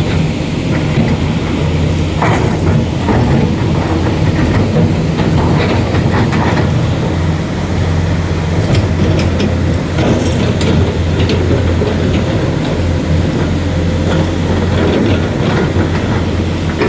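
A motor vehicle's engine running steadily with a low hum, with scattered knocks and rattles over it.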